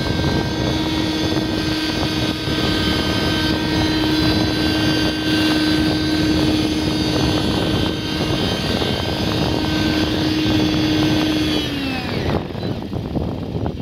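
Align T-Rex 600 nitro model helicopter's glow engine and rotors running at a steady high pitch. About twelve seconds in, the pitch falls away quickly and the engine stops: it is being shut down.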